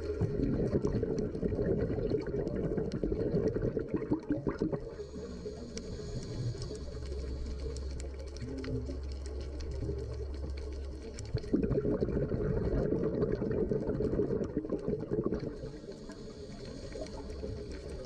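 Underwater sound of a scuba diver's exhaled bubbles gurgling past the camera in two long bursts, one at the start and one in the second half. In the quieter stretches a low steady hum is heard.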